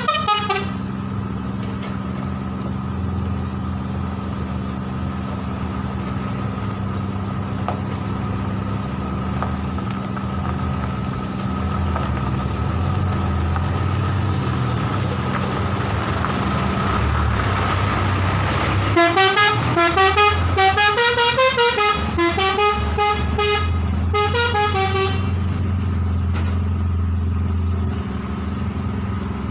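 Hino bulk-cement tanker truck's diesel engine running steadily as the truck moves off, with a short horn toot at the start. About two-thirds of the way through, its multi-tone musical horn plays a tune of rising and falling notes for about six seconds, the loudest sound here.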